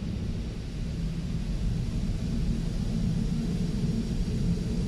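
Automatic car wash equipment running, a steady low rumble of spray and machinery heard muffled from inside the car's cabin.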